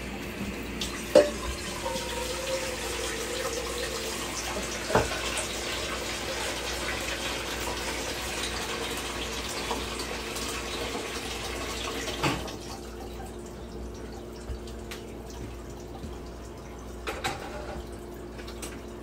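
Kitchen tap running water into a sink, shut off about twelve seconds in. A few sharp knocks of cookware come along the way, the loudest about a second in.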